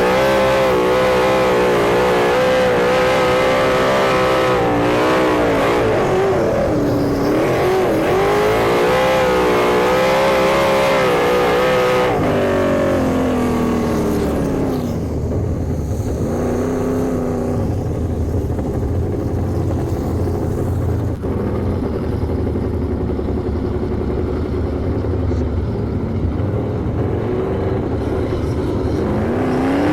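Sprint car engines running on the track, their pitch swinging up and down as the throttle comes on and off through the turns. About twelve seconds in the revs drop away to a low rumble that holds until the engines rev up again near the end.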